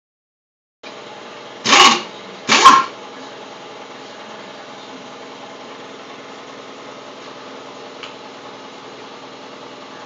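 Pneumatic impact wrench on a wheel's lug nuts: two short, loud rattling bursts about a second apart, over a steady hum.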